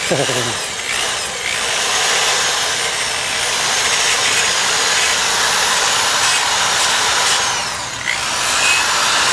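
Corded electric drill spinning a 400-grit sanding pad against a clear-coated alloy wheel: a steady whirring hiss of abrasive on metal. It eases off briefly about a second in and again near the end.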